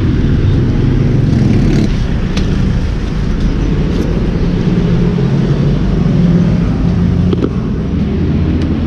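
Steady low rumble of a running motor vehicle engine, with a few light clicks and knocks as things are packed into a plastic motorcycle top box.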